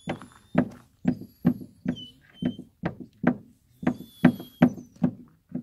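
A dog barking over and over, short sharp barks about two to three a second.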